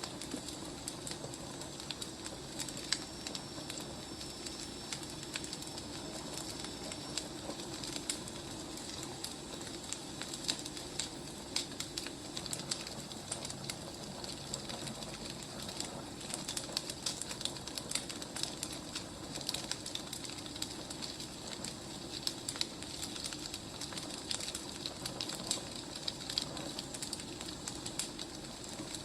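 Burning firewood crackling and popping steadily, with a soft hiss underneath. A faint, thin, high whistle sounds for a few seconds near the start.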